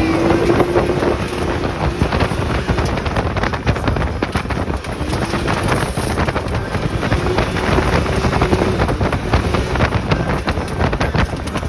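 Wind buffeting the microphone over heavy rain, a dense rushing noise full of small crackles, with a faint low hum near the start and again in the middle.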